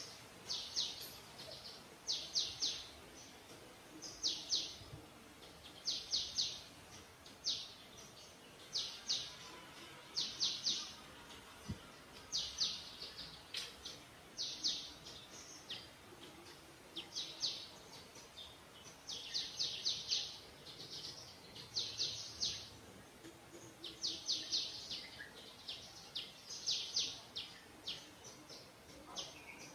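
Small birds chirping: short bursts of rapid high notes, repeated every second or two.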